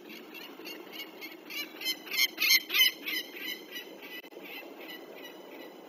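Peregrine falcon giving its harsh 'kak-kak-kak' alarm cacking, a rapid run of about five calls a second. The calls swell to their loudest in the middle, then fade away; this is the falcon's alarm at an intruding owl. A faint steady hum lies underneath.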